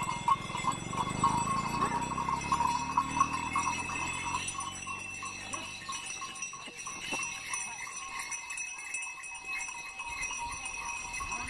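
Bells on festival-decorated bullocks jingling steadily as the animals are hurried along. A low drone slowly falls in pitch and fades over the first few seconds.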